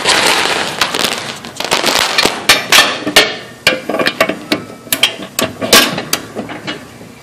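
Sharp, irregular metallic clicks and knocks of a ratchet and socket being worked onto a riding mower's blade bolt against the steel blade, with rustling handling noise in the first second or so.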